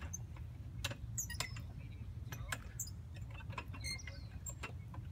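Metal chains and rings of playground chain monkey bars clinking and squeaking as a child swings along them hand over hand, giving irregular sharp clinks a second or less apart.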